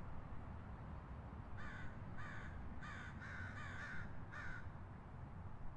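A bird gives five short calls in quick succession, starting about a second and a half in, the fourth drawn out longest, over a steady low rumble of the surrounding city.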